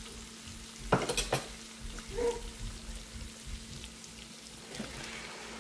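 Sliced onions sizzling steadily in hot oil in a frying pan, with two sharp clinks of a metal spoon against the dishes about a second in.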